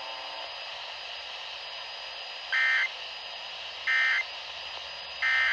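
Emergency Alert System end-of-message data bursts: three short, harsh digital warbles about 1.4 seconds apart, the first about two and a half seconds in, over steady radio hiss. They mark the end of the tornado warning broadcast.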